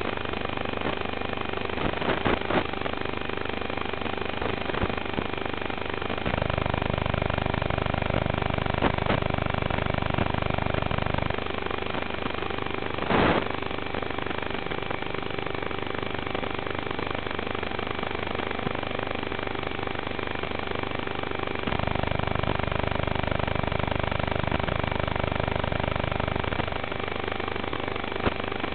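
Steady buzz and hiss with fixed unchanging tones, as carried on an FPV racing quadcopter's analog video-link audio. For two stretches of about five seconds a louder low hum comes in, and a single sharp knock sounds about thirteen seconds in.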